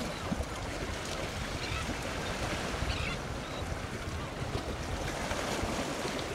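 Wind buffeting the microphone with an uneven low rumble, over a steady wash of sea water.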